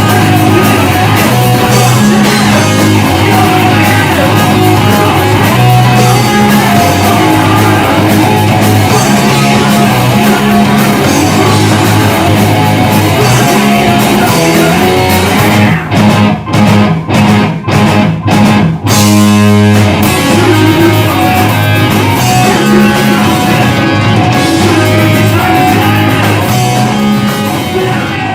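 Hardcore band playing a heavy riff on distorted electric guitar, bass and drums. About two-thirds of the way through, the band hits a run of short stop-start chords with brief silences between them, then comes back in with the full riff.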